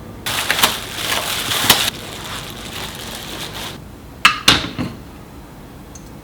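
Kitchen handling noise: a crunching, scraping noise for about a second and a half, then two sharp clicks about four seconds in.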